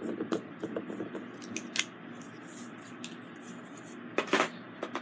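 Scattered small clicks and taps from diamond painting: a drill pen pressing resin drills onto the canvas and drills rattling in a plastic tray. The loudest clicks come in a quick cluster near the end.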